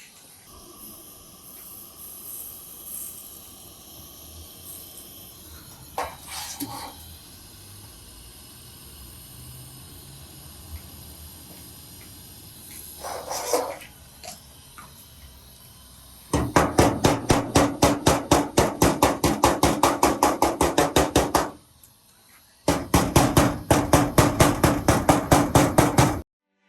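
A power tool hammering rapidly at a steady rate of about eight blows a second, in two loud runs of about five and four seconds with a short break between, after a few lighter knocks.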